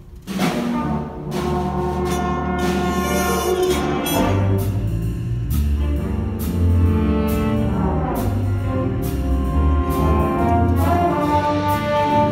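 Jazz big band playing: saxophones, trumpets and trombones over piano and drum kit, with regular drum and cymbal hits keeping time. The band comes in about half a second in, and a low bass line starts moving about four seconds in.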